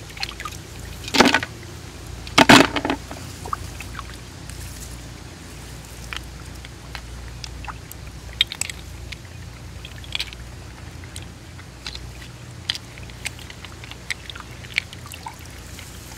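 Muddy water splashing and sloshing: two louder splashes about one and two and a half seconds in, then scattered small clicks and drips.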